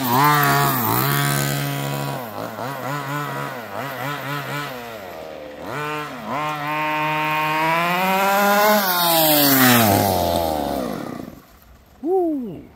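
RC buggy's two-stroke fuel engine revving in quick blips, then pulling a longer run that rises and falls in pitch and fades out as the buggy drives away. A short rising-then-falling blip comes near the end.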